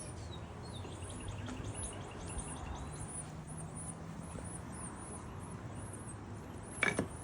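Nestling songbirds begging with thin, very high chirps repeated several times a second. A sharp click comes near the end.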